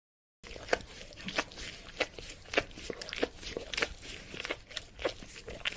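Dog licking: a steady run of licks, roughly three every two seconds, starting abruptly about half a second in.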